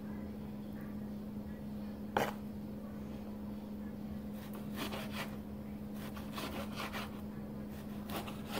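Chef's knife slicing through soft food and striking a plastic cutting board: a few separate strokes, one about 2 seconds in, then a cluster from about 5 to 8 seconds in, over a steady low hum.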